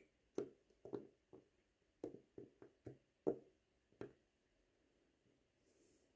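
Small sharp clicks and taps of watchmaker's tools against the watch movement and work surface, about nine in the first four seconds, the loudest a little past three seconds in, while the screws of a plate are being fitted.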